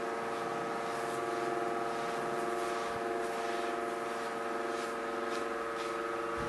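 Powder puff rubbing over a finished diamond painting's rows of drills, a few faint soft brushing strokes, under a steady electrical hum that is the loudest sound.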